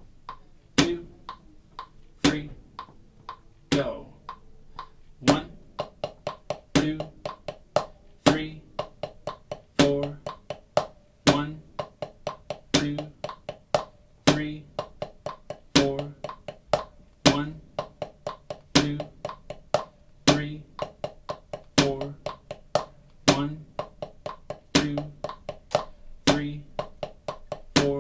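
Drumsticks on a rubber practice pad playing ten-stroke rolls in triplets at a slow tempo. A metronome click from the app keeps time at quarter note = 40, one click about every second and a half, with the stick strokes between.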